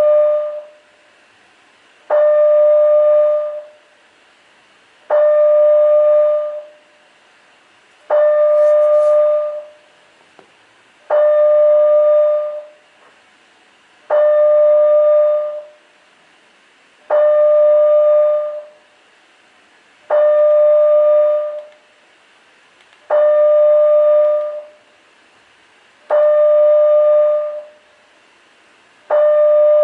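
Building fire alarm sounder giving a steady, pitched tone with overtones, about a second and a half long and repeating every three seconds. The slow pace of about twenty per minute matches the alert, or first-stage, signal of a Canadian two-stage fire alarm system, not the evacuation signal.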